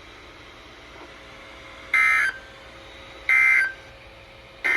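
Emergency Alert System end-of-message data tones played over a weather radio: three short, raspy warbling bursts about a second and a third apart. They signal that the tornado warning broadcast has ended.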